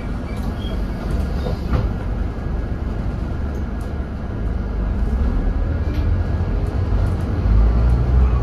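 Scania N230UD double-decker bus's five-cylinder diesel engine heard from inside on the upper deck: a steady low rumble as the bus moves off from a stop, swelling louder near the end as it accelerates.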